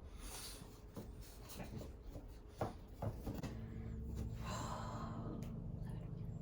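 Light knocks and clicks of flat-pack furniture parts being handled and slotted together. A steady low hum comes in about three and a half seconds in.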